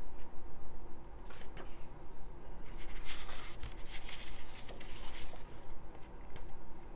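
Pages of a thick hardcover book turned by hand: paper rustling and swishing, with the longest and loudest stretch of rustling in the middle.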